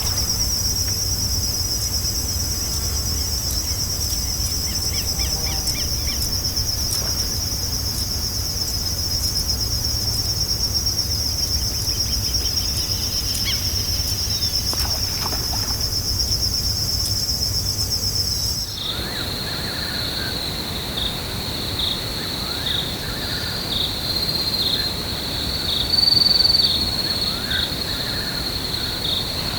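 Forest insects buzzing in a steady high-pitched chorus. About two-thirds through it switches abruptly to a lower insect trill that pulses every second or so. Faint bird chirps sound here and there.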